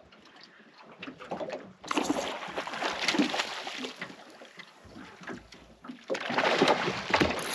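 Water slapping and splashing against the hull of a small aluminium boat, in two noisy spells: one starting about two seconds in, and a louder one near the end.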